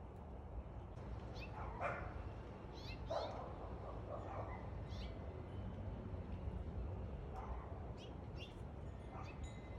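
A dog barking several times, the loudest barks about two and three seconds in, over small birds chirping.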